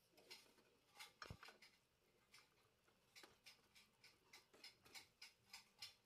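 Pot of chicken sinigang broth boiling, its bubbles popping in faint, irregular clicks that come faster toward the end, about four a second. A soft knock about a second in.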